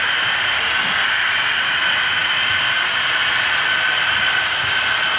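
HO-scale model freight train running on the layout: a steady rolling hiss of metal wheels on the rails, with a constant high whine from the locomotive motors and gearing.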